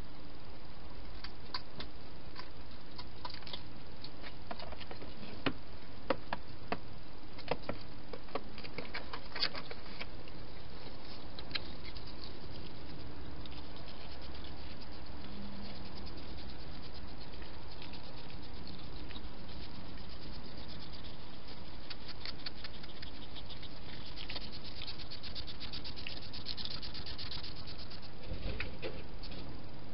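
A hedgehog crunching dry food from a bowl, heard as irregular small crisp clicks and crackles over a steady hiss. Later comes a run of fast, fine ticking, and near the end a low bump as the animal comes right up to the microphone.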